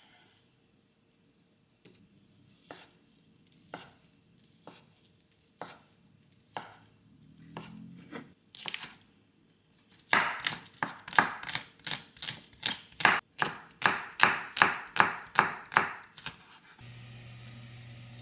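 Knife chopping food on a cutting board. At first come slow, single cuts about a second apart, then a quick, even run of about two to three chops a second. Near the end the chopping stops and a steady low hum starts.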